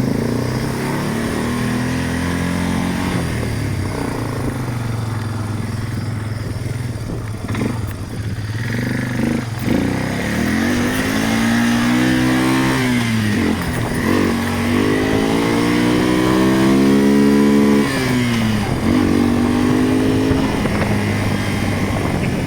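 Small vehicle's engine running under way, its pitch climbing and dropping back several times as it accelerates and eases off, with the biggest swings in the second half.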